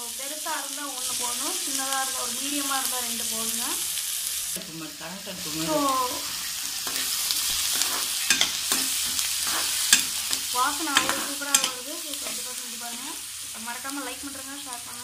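Chopped onions and tomatoes sizzling in butter in a frying pan, stirred with a steel slotted spatula that clicks and scrapes against the pan, mostly in the second half. A wavering pitched sound comes and goes in the background.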